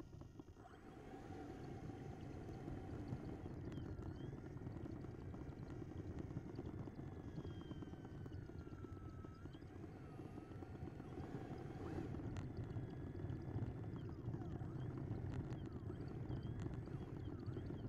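Onboard sound of an RC jet model taxiing on asphalt: a steady rumble from the wheels and airframe rolling over the rough surface. Over it runs a faint motor whine that slides down in pitch and back up again as the throttle changes.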